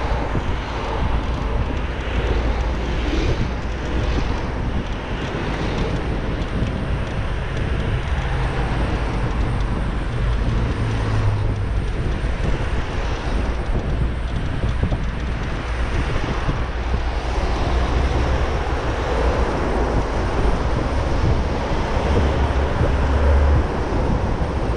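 Steady rush of wind on the microphone, with a deep rumble, plus tyre and car traffic noise, while riding a Xiaomi Mi Pro 2 electric scooter on a city road. About halfway through, the scooter passes into a road tunnel alongside cars.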